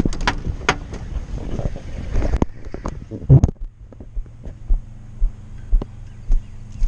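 Clatter of a person climbing out of a pickup truck, with a heavy thump about three seconds in as the door is shut. Then footsteps about two a second over a steady low hum.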